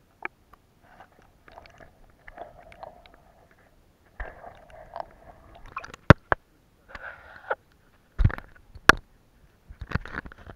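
Handling noise from an action camera being moved about: rubbing and rustling against its housing, with several sharp knocks in the second half.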